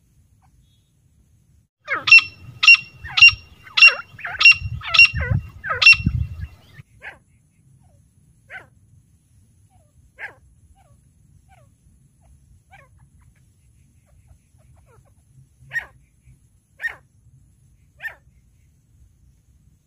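Female grey francolin calling: a rapid series of about eight loud, ringing calls, roughly two a second, then a few fainter single calls spaced several seconds apart.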